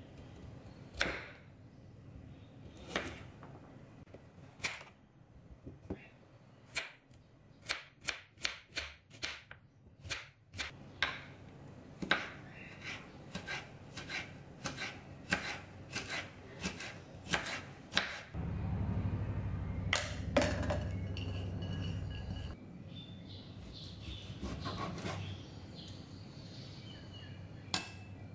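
Kitchen knife slicing a carrot on a wooden cutting board: a series of sharp knife strikes against the board, at times two or three a second. A steady low hum comes in for a few seconds past the middle.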